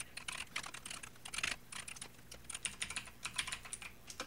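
Typing on a computer keyboard: quick, irregular key clicks in bursts, with a short pause about two seconds in.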